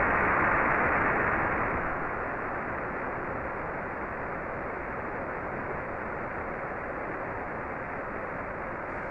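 Steady hiss of static on a radio voice loop with no one speaking. It is louder at first, drops somewhat about two seconds in, then holds even.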